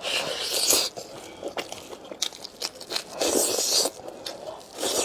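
A person eating close to the microphone: biting and chewing, with two longer noisy bursts, one at the start and one about three seconds in, and short clicks of the mouth between.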